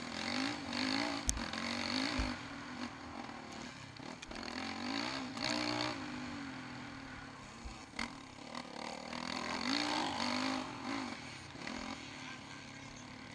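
Yamaha YZ450F's single-cylinder four-stroke engine ridden on a dirt motocross track, heard from on board, revving up and easing off in about three surges as the rider accelerates and backs off between corners.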